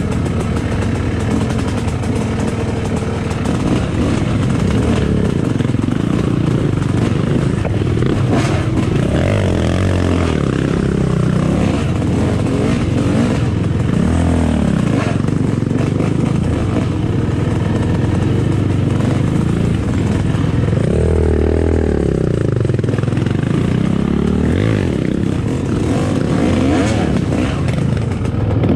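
Yamaha YZ250 two-stroke dirt bike engine running under way, its revs rising and falling several times as it is ridden over a rough trail.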